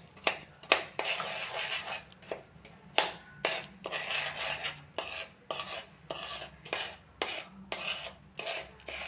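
A spoon scraping and knocking against a kadai while stirring jaggery syrup cooked with ginger juice, black pepper and nutmeg, in repeated irregular strokes about two a second. This is the cook-down stage of the syrup toward candy consistency.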